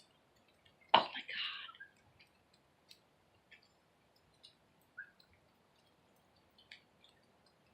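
A single short, harsh throat-clearing sound about a second in, lasting about a second, with faint scattered ticks before and after.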